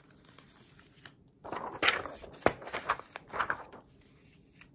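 Sheets of patterned scrapbook paper rustling and sliding as they are handled and laid flat, starting about a second and a half in, with one sharp tap partway through.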